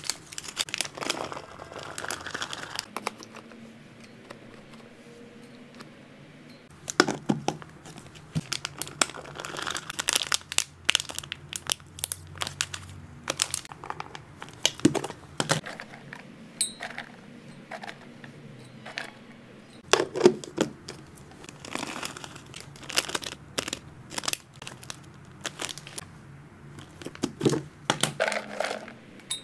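Clear plastic zip-lock bag crinkling and rustling as it is handled, coming in irregular spells with a quieter stretch a few seconds in, along with scattered light clicks and taps from plastic storage containers.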